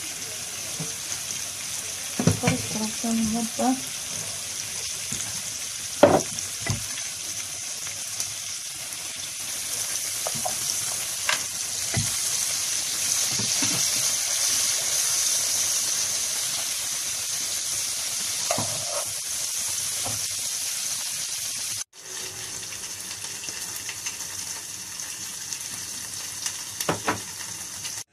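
Green peppers and tomato wedges sizzling steadily in oil in a frying pan. A few sharp knocks of a spatula against the pan come now and then as they are stirred.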